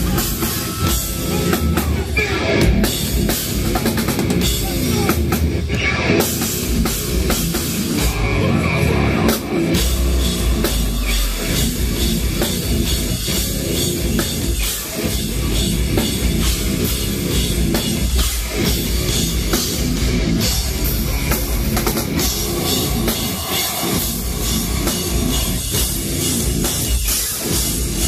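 Deathcore band playing loud live: distorted guitars, bass and a pounding drum kit, with the kick drum heavier from about ten seconds in.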